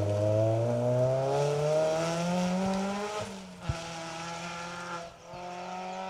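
Ford Fiesta rally car's engine revving hard as it accelerates away from a gravel hairpin, its note climbing, dipping briefly at gear changes about three seconds in and again near five seconds, and fading as the car drives off.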